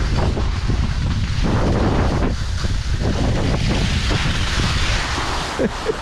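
Wind buffeting the microphone over the steady hiss of skis sliding on snow during a downhill ski run.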